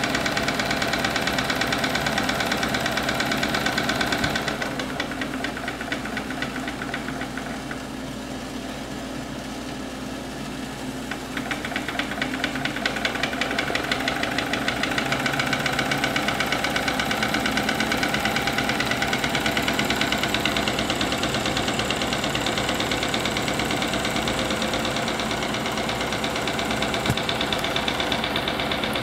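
Small homemade two-cylinder double-acting steam engine running fast with a rapid, even beat, belt-driving a small DC motor as a generator under a light electrical load that makes it work a little harder. It grows quieter about four seconds in and picks up again about twelve seconds in.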